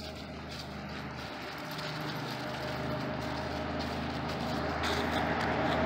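A motor running with a steady low hum that grows gradually louder.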